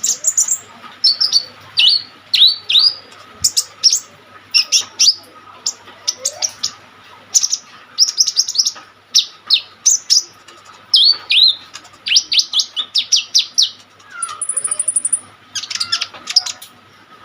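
Kolibri ninja (sunbird) singing vigorously: quick series of short, sharp, high chirps that mostly sweep downward, with brief pauses between phrases, and a very high, fast trill about fourteen seconds in.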